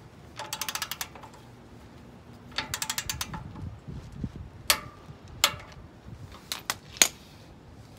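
Click-type torque wrench ratcheting in two short runs of rapid clicks as the sway bar end link bolt is run down. Then come several separate sharp clicks, the loudest near the end: the wrench breaking over at its 89 lb-ft setting, meaning the bolt is at torque.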